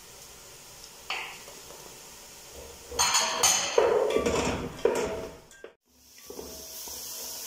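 A wooden spatula stirring and scraping in an aluminium pot, mixing spices into vegetables sautéing in oil, with a single knock about a second in and several loud scraping strokes in the middle. After a brief break, a steady hiss of the vegetables sizzling.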